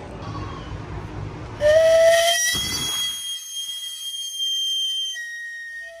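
Steam whistle on a camote vendor's cart, sounded by releasing steam pressure from the wood-fired boiler that cooks sweet potatoes and plantains. It sets in about a second and a half in as a loud, steady whistle of several tones over a hiss. It signals that the camote seller is coming.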